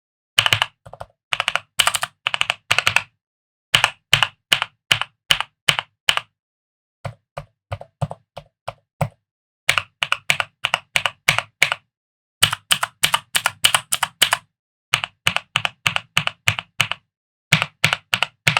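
Typing on a Vortexseries VX6 mechanical keyboard: quick runs of clacking keystrokes, a sharp click with a low thock under each, broken by pauses of under a second.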